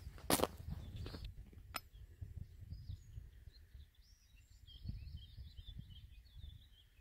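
A few footsteps at the start, then a small songbird singing a quick, twittering run of high notes from about two seconds in, over a low rumble.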